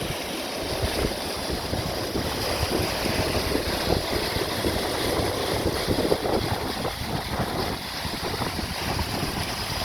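Steady rush of a creek in flood running over a papa mudstone base, with wind buffeting the microphone.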